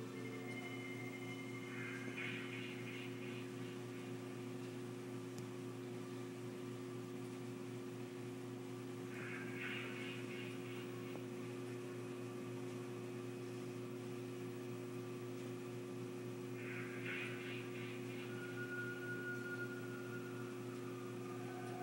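Steady low electrical hum, with three short chirping bursts spaced about seven seconds apart.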